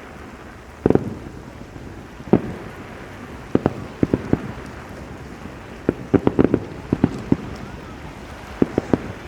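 Aerial fireworks bursting, a series of sharp bangs with a heavier boom about a second in and a quick cluster of bangs around the middle, over a steady wash of wind and background noise.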